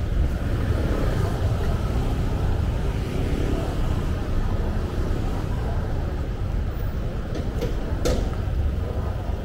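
Street traffic: a steady rumble of passing vehicle engines and road noise, with a couple of sharp clicks near the end.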